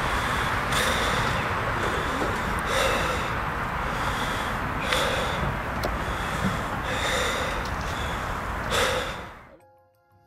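A person's heavy, laboured breathing, a gasping breath about every two seconds, over a loud steady rushing noise. All of it cuts off suddenly near the end.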